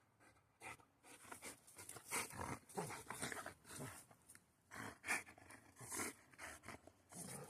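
Boxer dog panting and growling in play, in irregular bursts of breath with short low growls.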